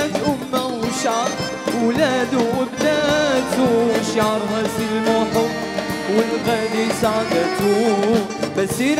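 A man singing an ornamented, wavering melody into a microphone over instrumental backing with steady percussion, in the style of Moroccan pop.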